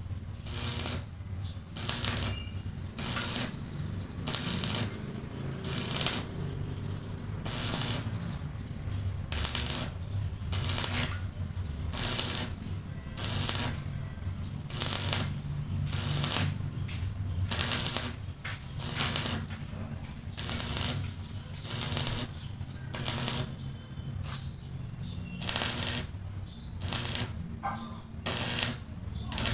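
Rhythmic rasping strokes, about one a second, of metal being abraded by hand, over a steady low hum.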